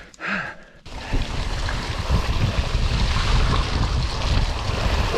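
Wind buffeting the action camera's microphone, mixed with mountain-bike tyres rolling over a wet trail. It starts suddenly about a second in as the bike picks up speed and stays loud.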